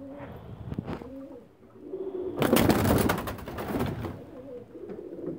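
Iranian high flyer pigeons (silver Toghi) cooing, with a loud burst of wing flapping starting about two and a half seconds in and lasting over a second.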